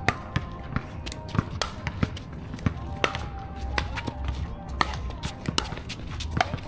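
Pickleball paddles striking a plastic ball during rallies on several courts: sharp pops at uneven intervals, a few a second.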